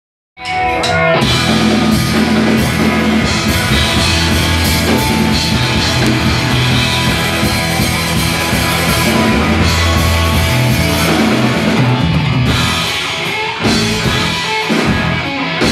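Live rock band playing an instrumental passage on electric guitars, bass guitar and drum kit, cutting in abruptly about half a second in.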